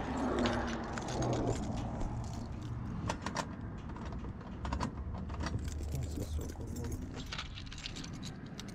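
A bunch of keys jangling, with many sharp metal clicks, as a key is worked into a metal cluster mailbox lock.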